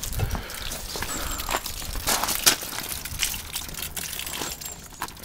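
Water trickling and dripping off a boat's propeller onto gravel, poured on to wet the propeller shaft's water-lubricated cutlass bearing before the engine is started, with a few scattered crunches and knocks a little after two seconds in.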